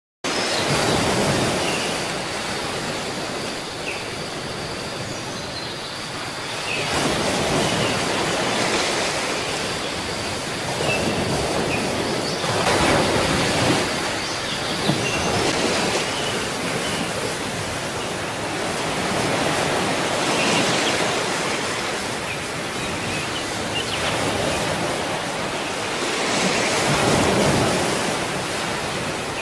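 Ocean surf washing onto a beach: a continuous rush of waves that swells and fades every several seconds.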